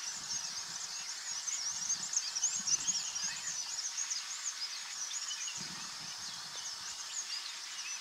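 Forest birdsong: many birds chirping and whistling at once in quick, high notes, busiest a couple of seconds in.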